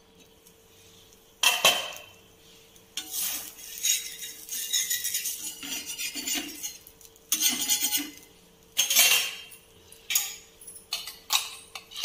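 Cookware clattering: a glass pan lid clinks as it is lifted off and set down, then a metal spatula scrapes and taps against an iron tawa in several rasping strokes.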